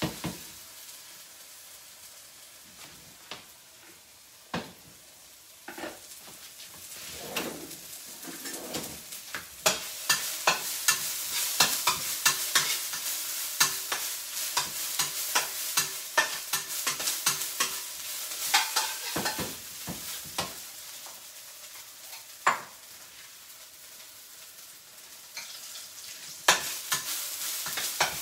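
Food frying and sizzling in pork fat in a pan while it is stirred, with a utensil repeatedly tapping and scraping the pan. The sizzling is quieter at first, grows louder about ten seconds in, drops back around twenty seconds, and picks up again near the end.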